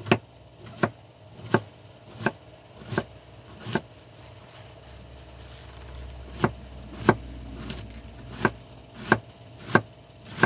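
Sharp kitchen knife chopping cabbage, a little faster than one stroke a second. The strokes stop for about two and a half seconds midway, then resume at the same pace.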